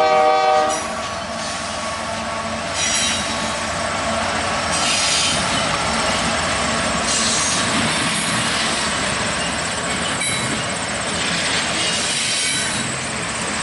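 Union Pacific freight train rolling past, its steel wheels on the rails with a high squeal of wheel flanges coming up every two to three seconds. A chord of steady tones cuts off under a second in.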